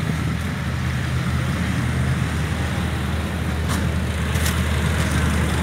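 Off-road jeep engines running steadily at low revs, a deep, even hum. Two short clicks come about two-thirds of the way through.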